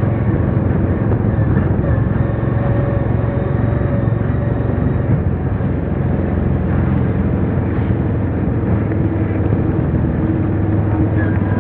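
Steady engine and road noise of a moving road vehicle heard from on board, a low rumble that stays even throughout.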